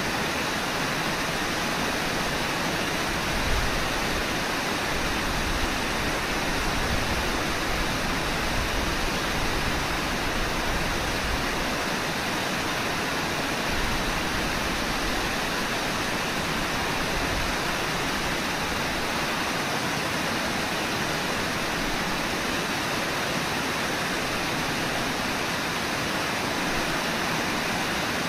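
Steady rush of river water running over shallow riffles, an even noise with no breaks.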